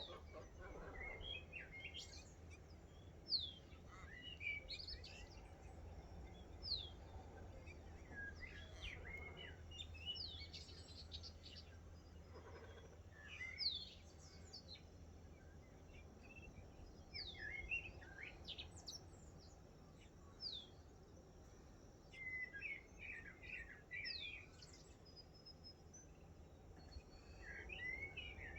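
Several wild birds calling in a faint morning chorus: scattered short chirps and twitters, with a sharp downward-sliding whistle repeated every few seconds. A low steady rumble lies underneath.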